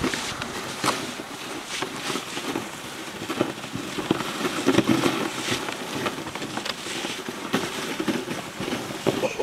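Dog sled runners scraping and crunching over snow while the sled moves, with many irregular crackles and knocks.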